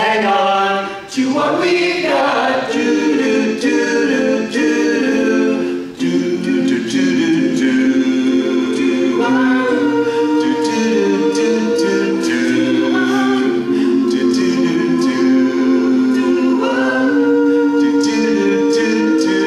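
Barbershop quartet of four men singing a cappella in close harmony, drawing out long held chords that shift a few times as the song comes to its close.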